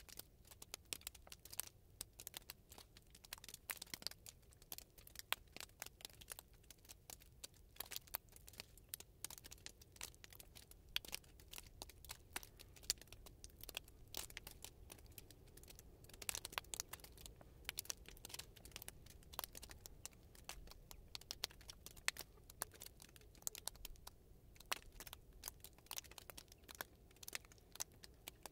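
Faint, irregular crackling and crinkling: many small sharp clicks that come unevenly throughout, a few standing out louder.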